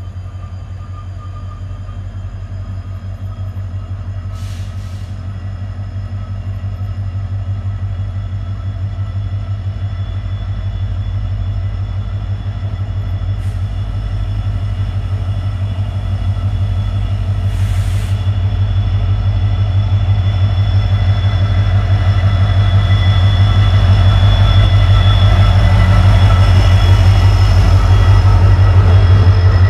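Diesel locomotive engine (WDP4, EMD 710 two-stroke) running under a low, steady pulsing drone with a faint whine of steady tones above, growing steadily louder as the train pulls slowly into the station. Two brief hisses sound about four seconds in and again just past halfway, and near the end the coaches roll past.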